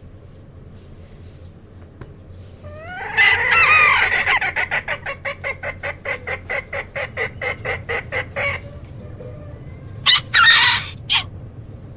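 Chickens calling: a loud squawk about three seconds in runs straight into a rapid, even series of clucks, about five a second, for some five seconds. Two or three loud, harsh squawks follow about ten seconds in.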